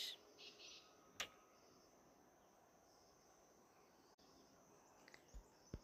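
Near silence with faint, steady, high insect chirring, a soft click about a second in and a few light ticks near the end.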